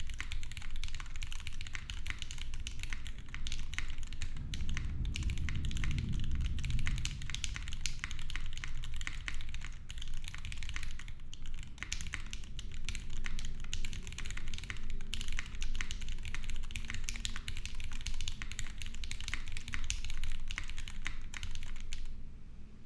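Steady fast typing on a gasket-mounted 60% mechanical keyboard with a brass plate, lubed linear switches (KS3 Gateron housings with UMPHWE stems) and GMK keycaps: a dense, continuous run of keystroke clacks. A low thunder rumble swells and fades behind it from about four to eight seconds in.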